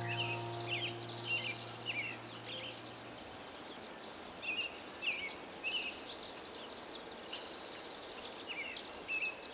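Forest ambience: small birds giving many short, repeated chirps over a soft steady hiss.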